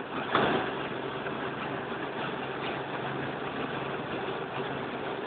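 Helicopter engine and rotor noise heard from inside the cabin: a steady drone with a low hum. A brief louder rush comes about half a second in.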